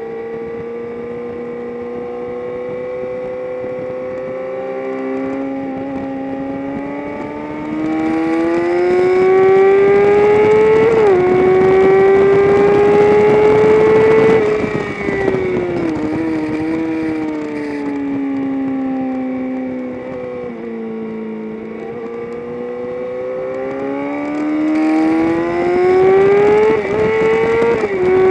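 Engine of a vehicle at speed on a race track, accelerating hard with its pitch climbing. It upshifts about 11 seconds in, keeps pulling, then slows through the middle with the pitch falling and brief blips on the downshifts. It accelerates again and makes another upshift near the end.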